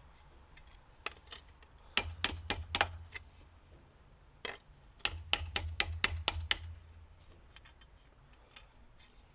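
Hammer blows on the treadle grinder's dented metal seat, pounding out the dent. There are a couple of single knocks, then a quick run of about five blows around two seconds in, and another run of six or seven just past the middle.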